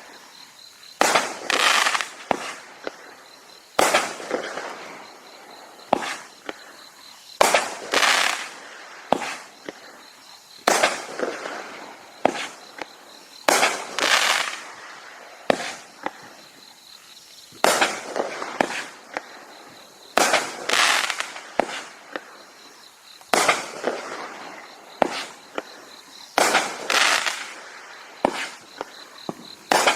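Consumer multi-shot fireworks cake firing shot after shot, one to three seconds apart. Many bangs are followed by about a second of crackling from crackle and strobe effects.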